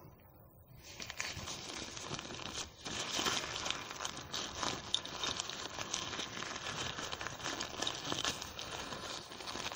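Rustling and crinkling of a small fabric pouch and fabric patches being handled and packed, close to a clip-on microphone; it starts about a second in and goes on as a run of small crackles.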